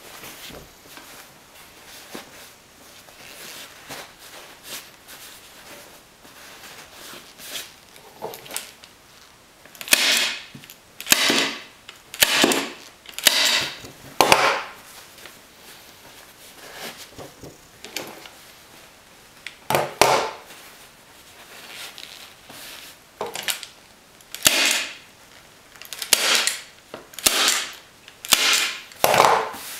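Hand staple gun firing staples through upholstery fabric into a wooden seat base, about a dozen sharp snaps in two runs, one starting about a third of the way in and another from about two-thirds of the way in. Softer rustling of the fabric being pulled taut comes between the shots.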